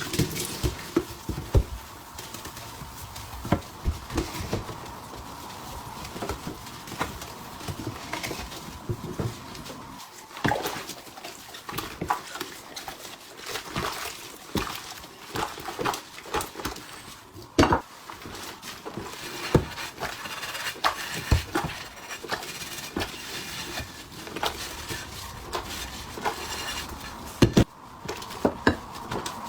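Kitchenware being handled: irregular clinks, taps and knocks of pots, bowls and ladles, over a faint steady hum.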